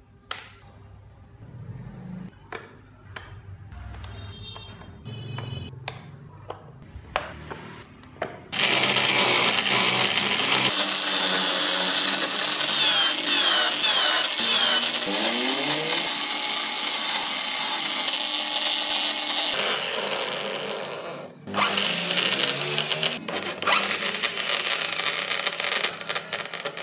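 Handheld power tool cutting and grinding into wood. A few scattered knocks come first, then from about eight seconds in the tool runs loud and steady under load. It drops off briefly about two-thirds of the way through and then starts again.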